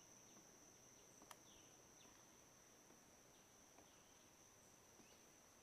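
Faint outdoor insect chorus: a steady high-pitched trill, with faint short falling chirps repeating about once a second and a single light click just over a second in.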